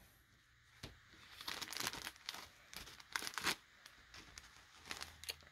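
Soft, intermittent rustling and crinkling as a folded square of cotton embroidery fabric is picked up and opened out by hand.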